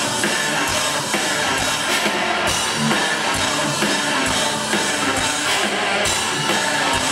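Metal band playing live at full volume: distorted electric guitars, bass and drums with a steady beat, recorded from within the crowd.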